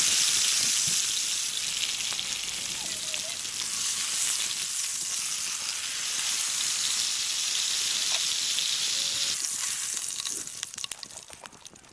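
Beef steak searing in hot oil in a frying pan, sizzling loudly and steadily. The sizzle dies down near the end as the steak is lifted out of the pan.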